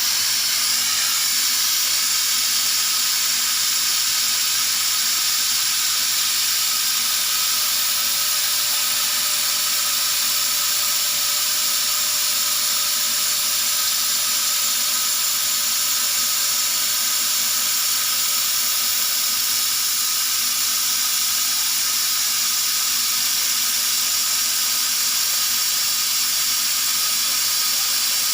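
CNC laser cutting machine running while it cuts 3 mm melamine plywood: a steady, unchanging hiss with a faint high whine.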